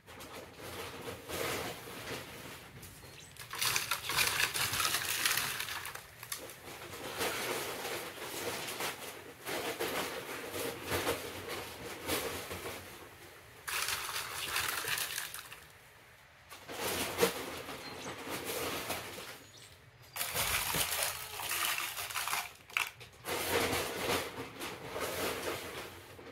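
Rain falling steadily, heard as a hiss that jumps in level between several stretches.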